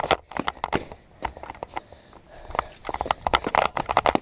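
Close, irregular crunching steps and small knocks, in quick clusters with a quieter gap of about a second in the middle.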